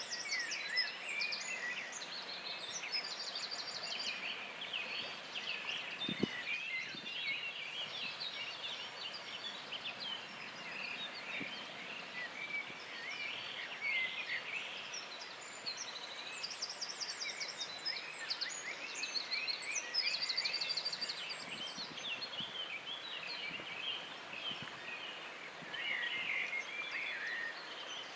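Many songbirds singing at once in a riparian forest in spring: overlapping chirps, whistled phrases and rapid trills, over a steady background hiss. There is a single soft low thump about six seconds in.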